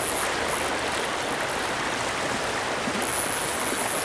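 Fast-flowing stream water rushing over rocks, a steady, even noise.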